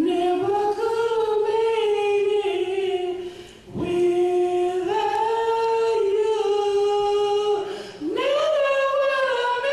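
A woman singing solo a cappella into a microphone: long held notes in three drawn-out phrases, with short breaks about three and a half and eight seconds in.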